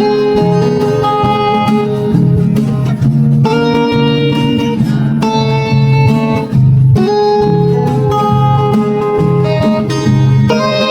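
Background music led by a plucked guitar, with held notes changing every second or two over a steady low accompaniment.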